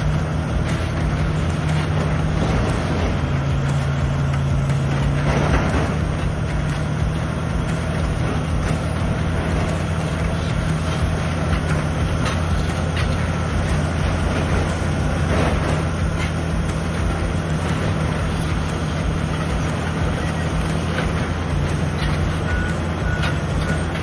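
Large crawler bulldozer's diesel engine running steadily under load, with scattered metallic clanks and two brief swells of noise. Near the end a reversing alarm beeps several times.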